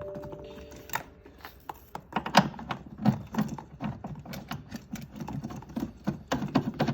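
Irregular clicks and knocks of metal handling as a flexible refrigerant-pipe quick connector is pushed and threaded onto an air-conditioning condenser's service port by hand. A short steady tone sounds in the first second.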